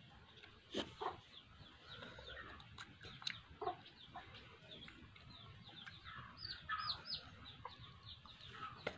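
Faint bird calls: many short, falling chirps and clucks, with a couple of sharp knocks about a second in.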